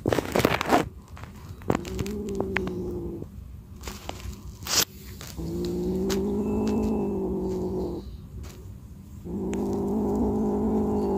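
Frightened stray kitten growling: three long, low, steady growls of one to three seconds each. Short, sharp hisses come before the first growl and between the first two.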